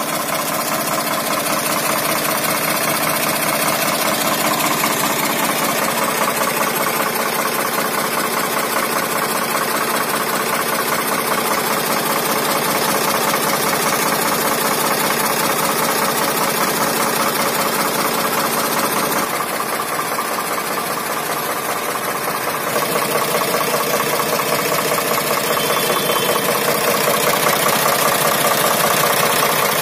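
Swaraj 855 tractor's three-cylinder diesel engine running steadily at idle after engine repairs.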